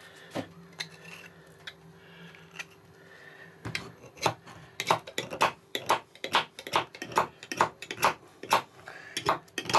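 Knife blade of M390 steel scraping and shaving a piece of bone in quick, short strokes, about three a second, starting a few seconds in. The finely finished edge bites only when held at a steep angle and otherwise skips off the bone.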